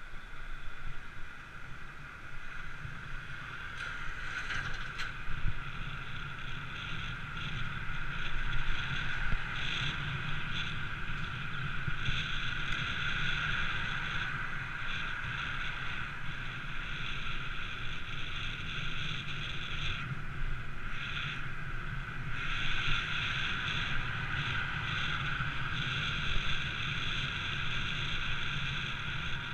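Wind buffeting the microphone over steady road and tyre noise from a bicycle ridden along a street at speed. The hiss swells and eases with speed.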